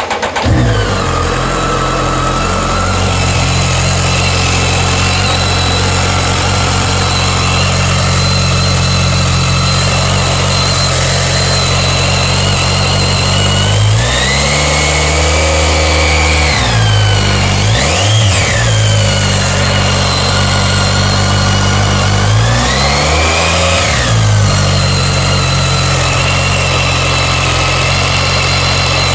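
BMW K1300S inline-four engine starting up, then idling and being revved up and back down three times in the middle: two longer revs with a quick blip between them. Over the engine runs a high-pitched screech that rises and falls in pitch with engine speed, which the owner is unsure is normal.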